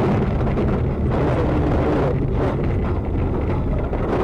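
Car driving on a snowy road, heard from inside the cabin: a loud, steady rumble of engine and tyre noise with wind on the microphone.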